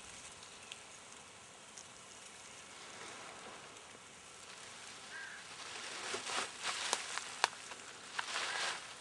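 Dry reeds and grass rustling and crackling, louder from about halfway through and stopping just before the end, with a few sharp snaps.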